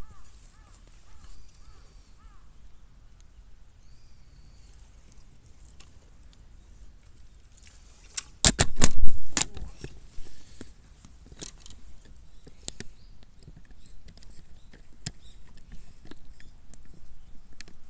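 Bamboo burning, with a tight burst of loud, sharp cracks and pops about halfway through, then scattered crackling clicks that grow denser towards the end. A bird chirps faintly near the start.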